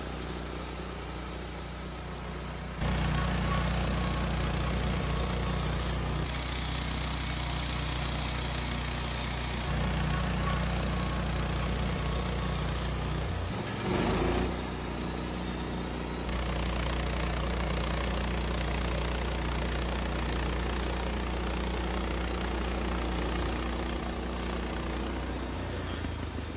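Woodmizer LT15 Start portable sawmill's engine running steadily while the blade edges Ponderosa pine flitches. The sound shifts abruptly several times.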